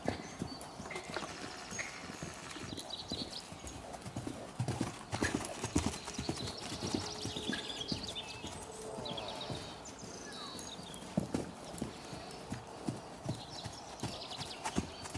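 Hoofbeats of a grey Lusitano horse moving around the lunge circle on sand arena footing, coming as an irregular series of thumps.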